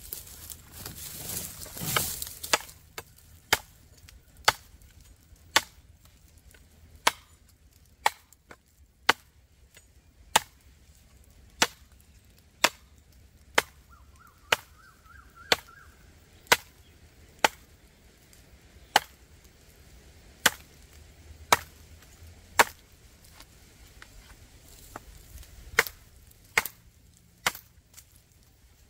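A 10-inch KRM Bamboo knife with an L6 steel blade chopping into a standing bamboo stalk: about two dozen sharp strikes, roughly one a second, with a rustle near the start and a pause of about three seconds before the last three.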